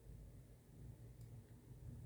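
Near silence: low room hum, with one faint click a little over a second in.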